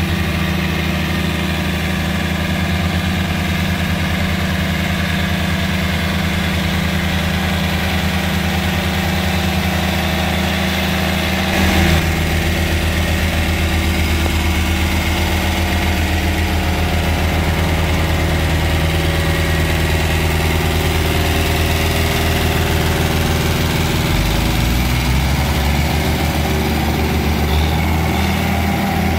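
Diesel farm tractors running steadily under load while working a flooded paddy field with disc implements. The engine note shifts with a brief louder moment about twelve seconds in, and changes again about five seconds before the end.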